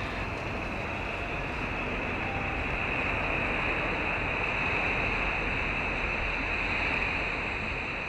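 Ocean surf breaking and washing in: a steady hiss of waves that swells slightly and eases off near the end.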